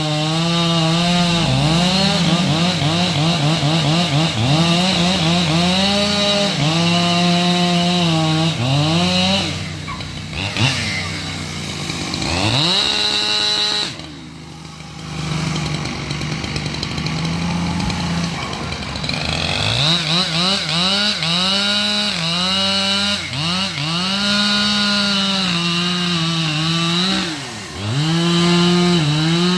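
Two-stroke chainsaw cutting wood at high revs, its pitch sagging again and again under load and recovering. About a third of the way in it eases off to a lower, quieter running for several seconds, then revs back up and cuts on.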